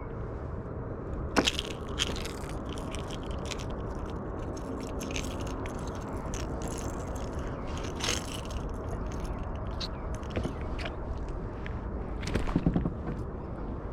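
Close-up handling noise from a kayak: scattered clicks, scrapes and crunches over a steady low rumble, with a sharp knock about a second and a half in and a louder cluster of knocks near the end.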